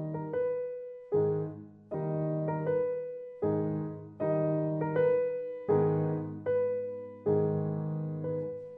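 Grand piano played solo: a slow, even succession of chords, each struck and left to ring and fade, about one a second, the last one dying away near the end.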